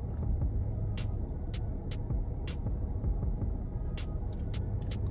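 Steady low rumble of a car interior with the engine running, with about ten short sharp clicks scattered through it.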